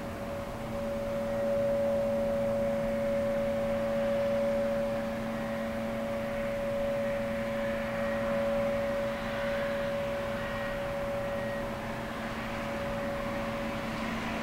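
A steady, unbroken drone holding two pitches, one low and one higher, over a faint background rush. Its origin is unknown: it seems to come from the sky, and the recordist first took it for sirens.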